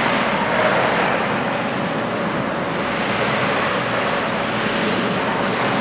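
Steady noisy din of an indoor ice rink during a hockey game, with a faint steady hum underneath.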